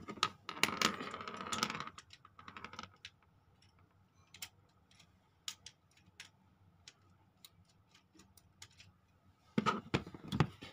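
Small plastic and metal clicks and taps from hands and tools working on a wall light switch and its wiring. There are denser bursts of handling noise about a second in and again near the end, with scattered single clicks between them.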